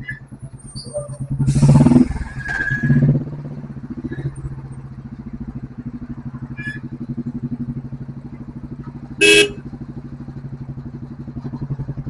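Royal Enfield Bullet's single-cylinder engine running at low speed in traffic, with an even pulsing beat. It swells louder for about a second and a half near the start, and a short vehicle horn blast sounds about nine seconds in.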